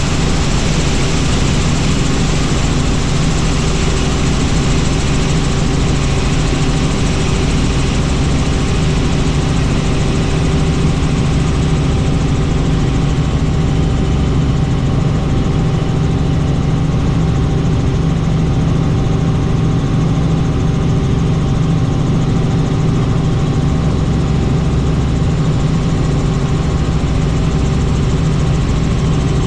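Helicopter in flight: the steady drone of its turbine and rotor, with a few constant low tones and no change in pitch.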